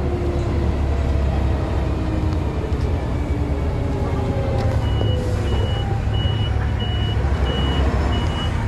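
The diesel engine of a 1991 MAN SL243 bus running as the bus drives through traffic, a steady low rumble heard from inside the cabin. About five seconds in, a short high electronic beep starts, repeating about twice a second.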